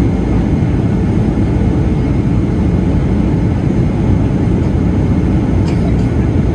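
Steady cabin noise of a Boeing 737-400 in flight, heard from a window seat over the wing: the CFM56-3 turbofan engine and the airflow make a constant deep roar.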